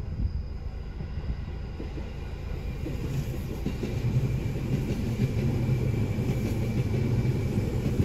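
Seibu Railway electric commuter train running over a level crossing, a low rumble that grows louder from about three seconds in.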